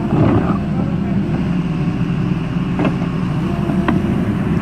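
Diesel engine of a Doosan wheeled excavator running steadily under load while plowing snow, with two brief clicks or knocks in the second half.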